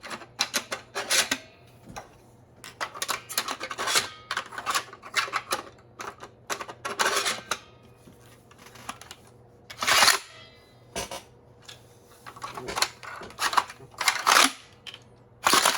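Clicks and clacks of a 3D-printed plastic Nerf pump shotgun being handled and cycled. They come in irregular clusters with pauses between, and the loudest single snap is about ten seconds in.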